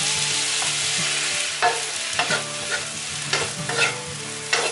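Seafood sizzling as it is tipped into a hot wok of curry fried rice, then a wooden spatula scraping against the wok in about five quick strokes as the rice is stir-fried over the frying hiss.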